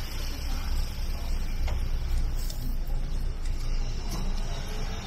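Steady low rumble and hiss of outdoor street ambience, with one faint click about a second and a half in.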